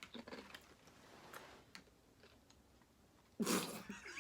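Faint chewing and crunching as people eat a mouthful of berries and ice in coconut water, with small clicks through the first two seconds. A short, louder noisy burst comes about three and a half seconds in.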